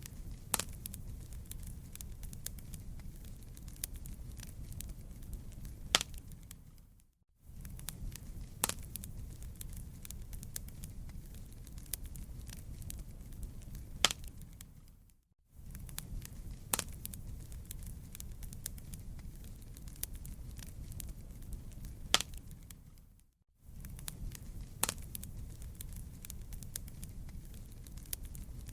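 Wood fire crackling: a steady low rumble of burning with many small sharp crackles and occasional louder pops. The sound drops out briefly about every eight seconds, three times, and then resumes.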